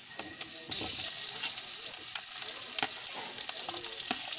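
Hot oil with garlic and onion in a wok, sizzling up sharply about a second in as raw seafood chunks are tipped in from a plastic bowl, then frying steadily. Scattered knocks and clicks come from the pieces landing and being moved about in the pan.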